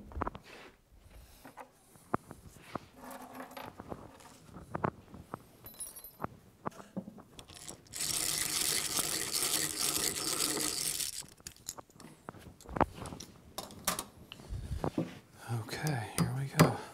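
Scattered knocks and clicks of wood and tools being handled, then about three seconds of a small drill bit boring a pilot hole into a wooden molding strip, a steady whir. Near the end a hammer starts tapping a nail into the strip.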